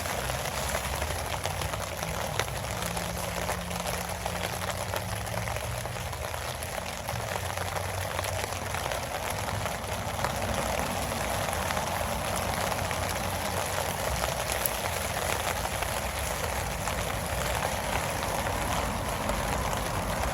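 Steady rainfall, a constant even hiss of falling drops that grows slightly louder in the second half.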